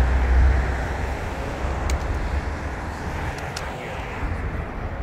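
Steady highway traffic noise, with a heavy low rumble in the first half second that eases off, and a few faint clicks.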